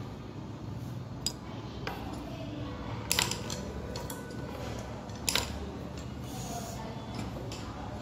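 A few light metallic clicks and clinks, the loudest a short cluster about three seconds in and another about five seconds in, over a steady low background hum.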